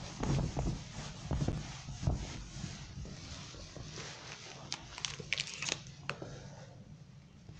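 Whiteboard duster wiping across the board in quick scrubbing strokes, dying away after about two to three seconds, followed by a few short sharp clicks about five to six seconds in.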